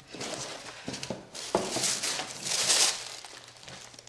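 Cardboard doll box being opened and handled, with its paper and plastic packaging crinkling and rustling in several short spells and a few light knocks.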